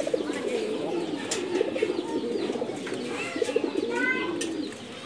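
English trumpeter pigeons cooing together, a continuous overlapping low coo from many birds, with a few short higher chirps about three to four seconds in.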